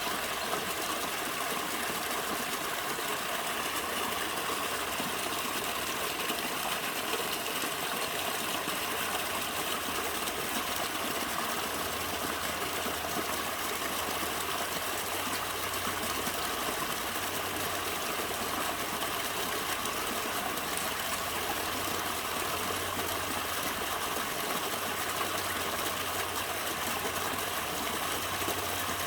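A small natural stream of water running steadily.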